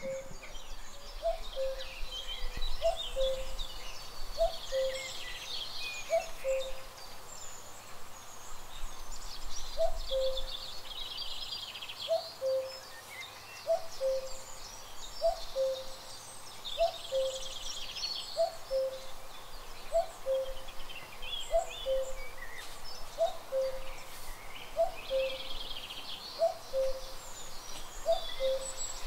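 Garden birdsong: a low two-note call, a higher note dropping to a lower one, repeats about once a second, while smaller birds chirp and trill higher up.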